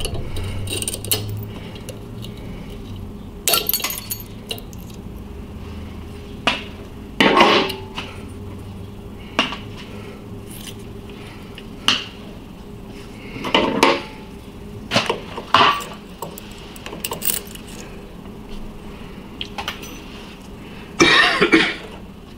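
Scattered clinks and knocks of glass and metal as a vacuum tube's broken-off glass envelope and bench tools are handled, with a busier cluster of rattling near the end. A low hum sits under the first few seconds.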